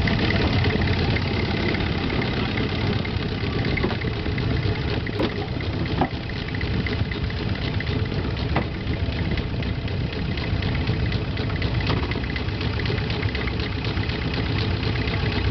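Long-tail boat's pole-mounted stern engine running steadily at close range, with a brief dip in loudness about six seconds in.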